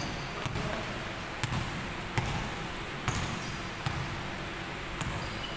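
Basketball bouncing on a wooden gym floor as it is dribbled: about six sharp bounces at an uneven pace of roughly one a second.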